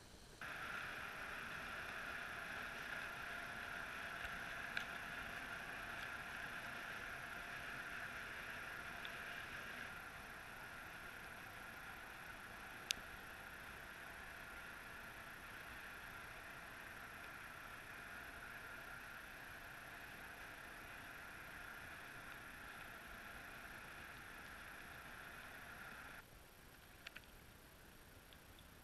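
Faint steady drone of a distant boat motor heard underwater, with a few sharp ticks; it cuts off suddenly near the end.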